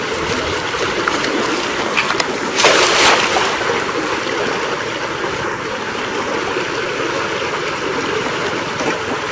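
Floodwater rushing steadily, with one louder, broader burst of water noise lasting about half a second, about two and a half seconds in.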